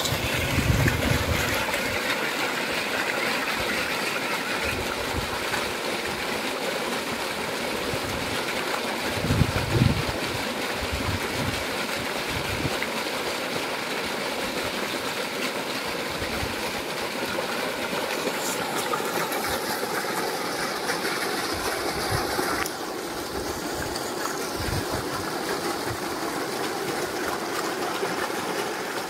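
A heavy jet of well water gushes steadily from a 6-inch irrigation pipe into a flooded channel. Two low thuds come about a second in and again around ten seconds, and the rush eases slightly about three-quarters of the way through.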